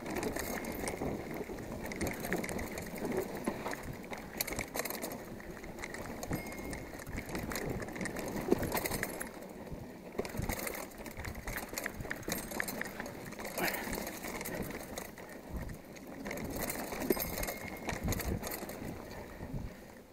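Mountain bike riding fast down a rough dirt singletrack: knobby tyres rolling on dirt, with the frame, chain and parts rattling and knocking over bumps and steps. The sharpest knock comes about eight seconds in.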